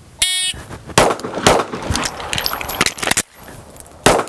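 A shot timer's start beep, then a Glock 19 pistol firing two quick shots about half a second apart. The clicks and rattles of a magazine reload follow, and a third shot comes near the end.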